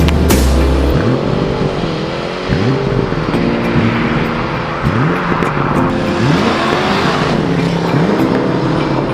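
A car engine revving again and again, its pitch climbing and dropping several times, with a hiss like tyre squeal, over background music.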